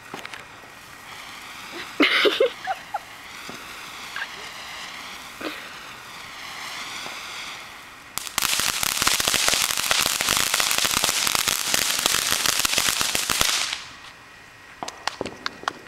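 A torch made of bundled sparklers burning with a steady hiss and a few sharp pops about two seconds in. About eight seconds in it breaks into a loud, dense crackle that cuts off suddenly some five seconds later, leaving only scattered pops as it burns out.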